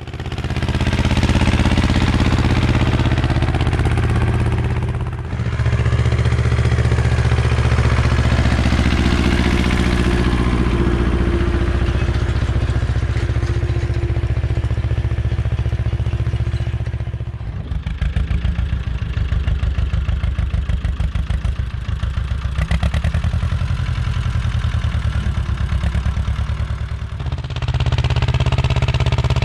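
Ursus C-330 tractor's two-cylinder diesel engine running loud while working a field, with a clear chugging firing beat. The sound changes abruptly about five seconds in, at about seventeen seconds and near the end as the clips are cut, and the beat is most distinct in the middle stretch.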